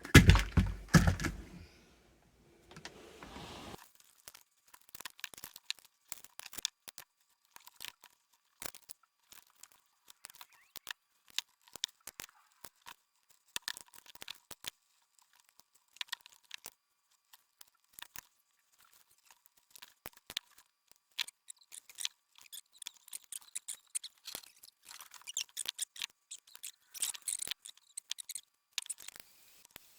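Hands-on wiring work: a loud bump right at the start, then scattered small clicks, taps and crinkling from handling wires, connectors and small tools, busier near the end.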